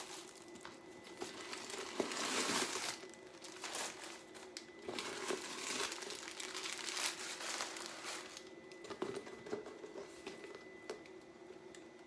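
Crinkling and rustling as a newly unboxed slim bag and its packaging are handled, in irregular bursts with a louder stretch a couple of seconds in and a few small clicks later on.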